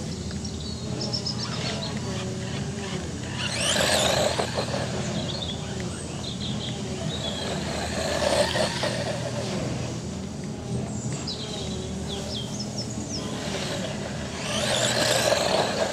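Brushed electric RC buggy (FTX Tracer) driving on a dirt track, its motor whine wavering with the throttle, swelling louder and grittier three times.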